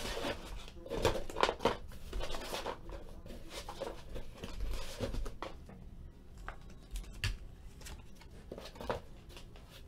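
Trading cards and their packaging handled on a tabletop: irregular rustling and soft taps, busiest in the first few seconds, with a few sharp clicks later on.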